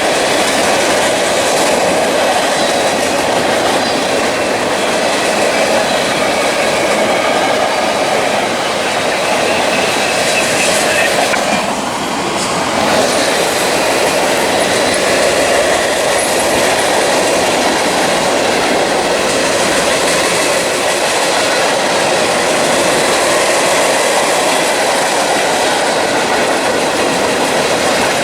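Freight train cars rolling steadily past at track speed, wheels clattering over the rail joints in a continuous loud rumble that eases briefly about twelve seconds in.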